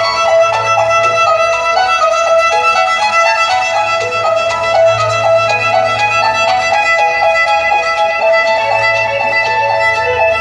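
Music for a water, light and sound fountain show: a fast violin melody of quick, short notes over a held low bass.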